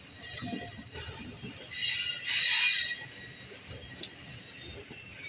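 Passenger coach's steel wheels squealing on the rails while the train runs, one loud high metallic screech about two seconds in that lasts roughly a second, over the low rumble and clatter of the moving coach.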